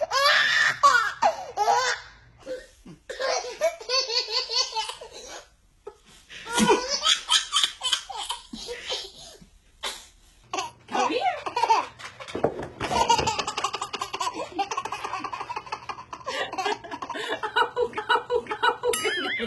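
Babies laughing: several babies in turn break into fits of belly laughs and giggles, with brief pauses between the fits.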